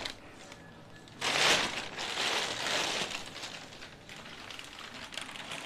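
Thin plastic bag rustling and crinkling as it is pulled off a flat-screen TV. It starts suddenly about a second in, is loudest for a couple of seconds, then goes on as fainter rustling.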